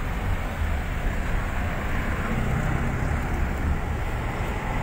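Steady low engine rumble and road noise heard from inside the cab of a vehicle on the move.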